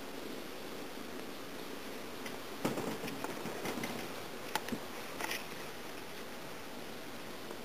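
Soft rustling and a few short clicks as a cat shifts and sits up on a fleece blanket, over a steady low hiss.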